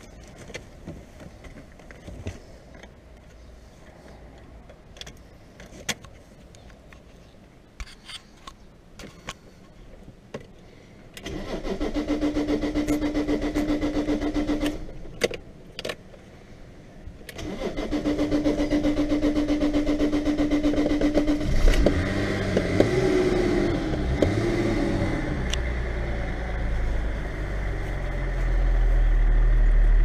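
Scattered small clicks and knocks, then a car's starter motor cranks twice with a steady whine, heard from inside the cabin. On the second try the engine catches with a rising and falling rev and settles into a running rumble that grows louder near the end.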